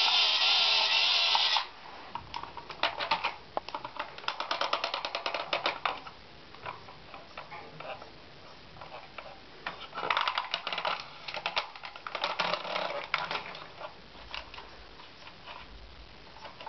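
New-Ray 1:32 Tiger I toy tank: a wavering electronic sound effect cuts off about a second and a half in. It is followed by two long spells of rapid, dense clicking from the toy as it is handled.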